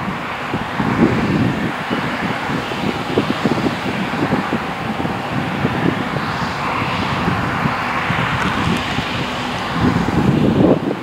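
Claas Lexion 600 TT combine harvester running steadily while cutting oilseed rape, with wind buffeting the microphone.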